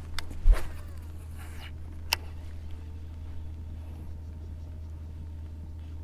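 A baitcasting rod and reel being cast. About half a second in there is a thump and a brief whir of line leaving the spool. About two seconds later a single sharp click is heard as the reel is engaged. A steady low rumble runs underneath.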